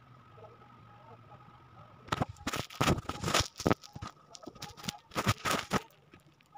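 Handling noise from a phone camera on a tripod being gripped and moved right at the microphone: a dense run of loud rubbing knocks and scrapes. It starts about two seconds in and lasts nearly four seconds.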